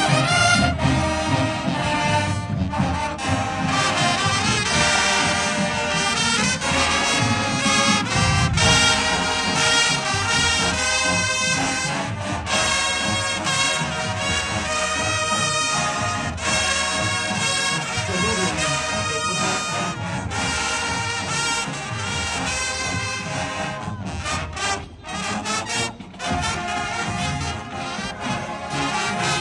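A marching band's brass section playing a tune, with two brief breaks in the music near the end.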